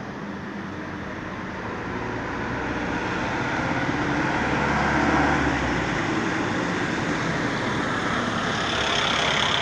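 Road traffic: a motor vehicle's engine and tyre noise growing louder over a few seconds, loudest about halfway through, then easing off near the end.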